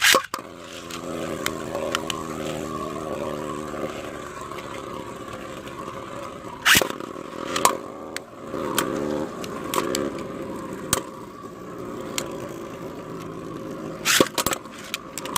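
3D-printed Beyblade spinning tops launched into a plastic battle stadium with a sharp clack, then whirring and scraping steadily as they spin. Hard clacks come when they collide, twice in the middle and in a quick cluster near the end.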